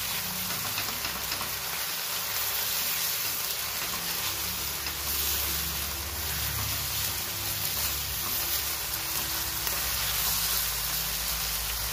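Raw minced meat and sliced onions sizzling in hot oil in a non-stick karahi, stirred and turned with a silicone spatula: a steady frying hiss.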